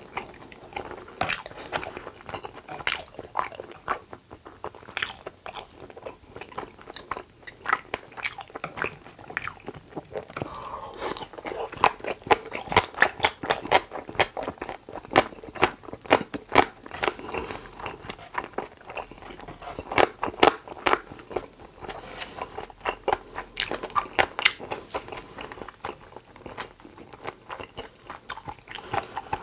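Close-up eating sounds: a person chewing and biting food, with many crisp crunches and wet mouth clicks coming irregularly.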